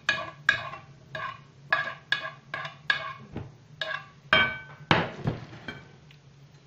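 A spoon tapping repeatedly on the rim of a bowl to knock food off it: short ringing clinks, about two or three a second, thinning out near the end.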